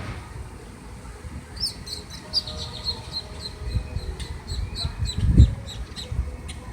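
Ducklings peeping: a quick run of short, high, falling peeps, several a second, starting about one and a half seconds in. Under them runs a low rumble, with a dull thump about five seconds in.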